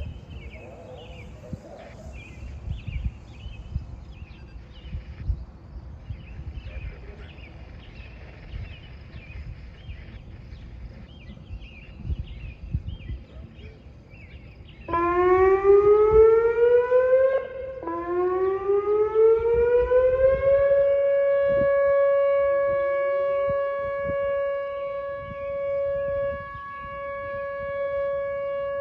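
Whelen 2900 electronic outdoor warning sirens sounding a test. After about fifteen seconds of faint outdoor background with high chirps, a loud tone starts, winds up in pitch, cuts off briefly, then winds up again and holds a steady tone that swells and dips in loudness.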